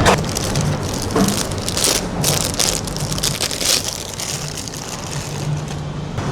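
Packaging rustling and crinkling as it is handled close to the microphone, in irregular bursts that are busiest in the middle, over a low steady hum.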